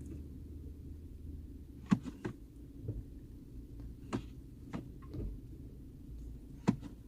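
Toyota Prado 120's 4.0 V6 idling with a low hum while the automatic is shifted between Drive and Reverse. Each shift brings short knocks and clicks, the loudest about two seconds in and again near the end. These are driveline clunks that a new transfer-case chain has softened; the owner puts the knock that remains in the splined slip joint of the rear driveshaft.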